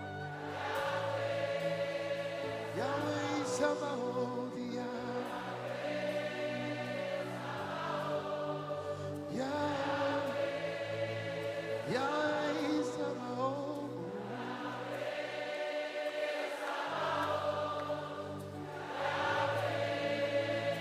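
Choir and congregation singing a slow gospel worship song over sustained instrumental accompaniment.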